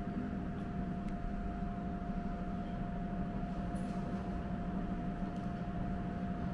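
Steady machine hum with a constant high whine over a low drone, with a couple of faint ticks.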